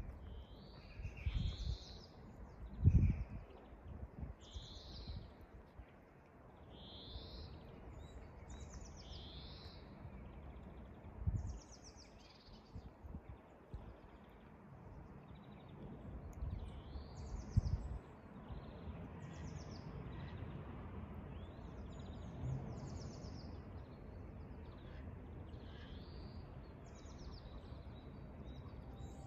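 Small songbirds chirping and singing, short high notes repeating about once a second, over a steady outdoor background. A few brief low rumbles stand out, the loudest about three seconds in.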